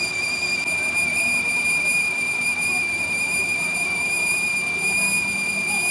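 Running machine tool giving off a steady, high-pitched whine with a slight waver.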